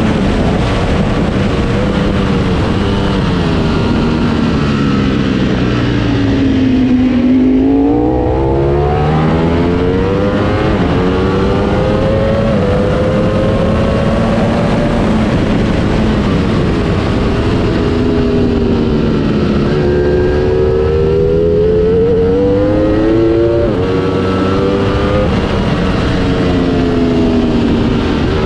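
Ducati Panigale V4 S's V4 engine heard from the bike itself at racing speed, over a heavy rush of wind. The engine note drops as the bike slows and climbs again as it accelerates, twice over. There is a sharp gear change about three-quarters of the way through.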